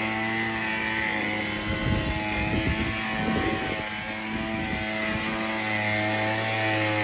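Snowblower's small gasoline engine running steadily, with a rougher, noisier stretch in the middle.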